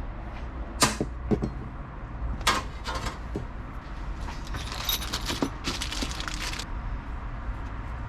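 Parts and tools being handled on a workbench: a few sharp clinks and knocks in the first half, then about two seconds of rustling and scraping, over a steady low hum.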